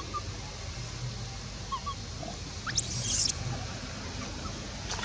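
A young macaque gives one short, shrill scream about three seconds in, sweeping sharply up in pitch and turning harsh. Faint high chirps come before it.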